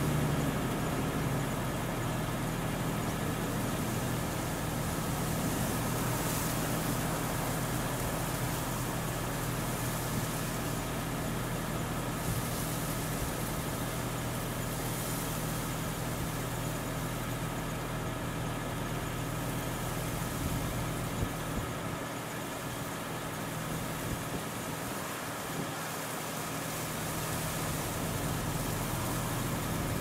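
A steady, low engine hum with a few unchanging low tones, under a hiss that swells and fades.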